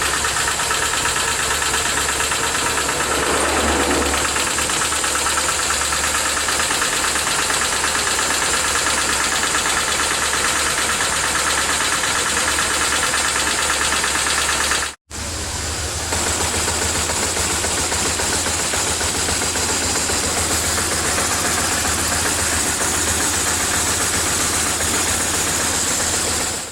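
BMW R1150R's air-cooled boxer twin engine running steadily, on a bike brought in for a knocking noise from the left cylinder, with valve clearance the suspected cause. The sound cuts out for a moment about halfway and the engine is running again right after.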